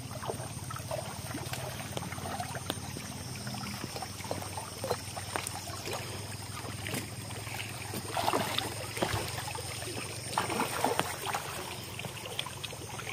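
Small waves lapping at a lake's edge, with scattered small clicks and a few short louder splashy bursts about eight and eleven seconds in. A steady low hum sits underneath.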